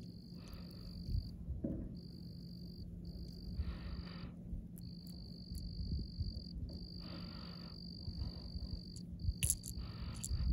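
Insects trilling on one high, steady pitch in bouts of one to two seconds with short gaps, while a frog calls about every three to four seconds.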